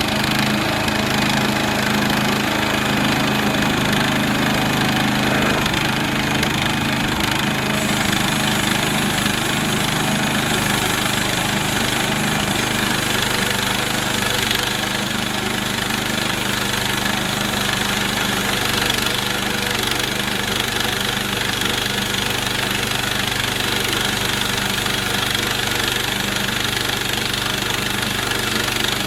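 Gasoline engine of a Harbor Freight Central Machinery portable band sawmill running steadily, with a constant wide hiss over the engine note.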